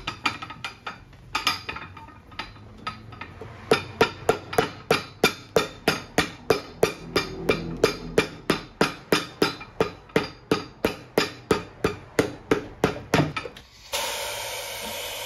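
Cobbler's hammer striking the sole of a leather work boot: a few scattered blows, then a steady run of about three strikes a second. The hammering stops near the end and a steady hiss starts.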